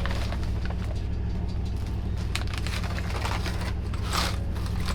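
Steady low rumble of a moving sleeper train, with a few short crackles of snack packaging being handled.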